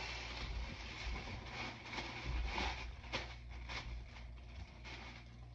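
Rustling, scraping and light knocks of packing materials and products being handled while a shipping order is packed, busiest around three seconds in, over a steady low hum.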